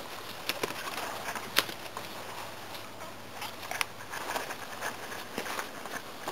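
Rustling and crackling in dry grass and undergrowth, with scattered sharp clicks and taps, the loudest about a second and a half in and again near four seconds.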